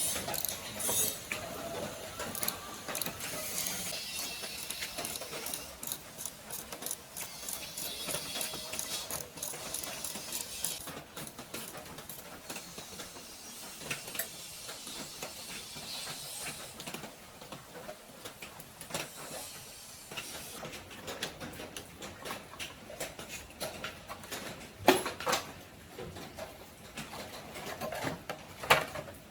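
Metal clicking and rattling from hand work on mechanical parts, with a steady hiss through the first part. Two sharp knocks near the end are the loudest sounds.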